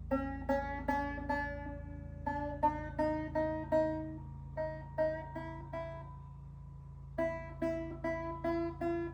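A banjo string on an Ortega Falcon banjo plucked over and over while its tuning peg is turned, the note creeping up in pitch as it is tuned up. The plucks come in three quick runs with short pauses between them.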